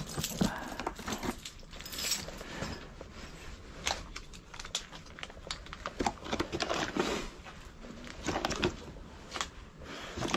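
Plastic packaging crinkling and rustling, with scattered clicks and knocks of a hard-shell bicycle handlebar bag's lid, as food in plastic bags and bottles of water are packed into it.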